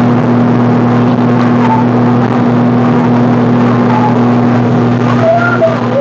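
Motorboat engine running with a steady low drone under a constant rushing noise.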